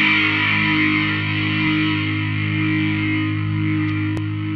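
Intro music: a single distorted electric guitar chord held and ringing out, slowly fading.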